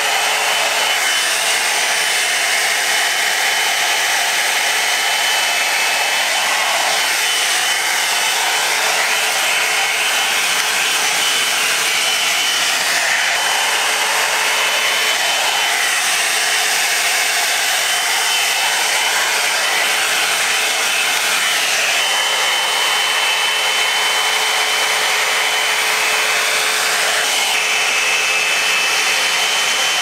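Drybar Double Shot oval blow-dryer brush running steadily: a constant rush of fan and hot air with a faint high whine. The sound shifts slightly now and then as the brush is drawn through long hair.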